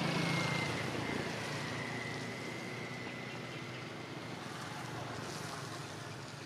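A passing engine fading away as it runs. Its low hum dies out in the first second, and a thin whine sinks slightly in pitch over the next two seconds, over a steady hiss that slowly gets quieter.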